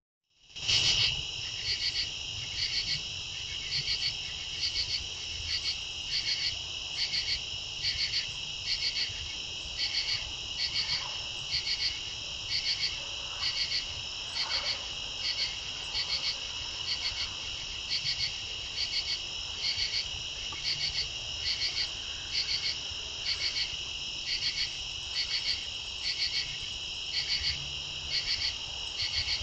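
Night insect chorus: a steady high-pitched trill, with a louder pulsed call repeating in pairs about every three-quarters of a second.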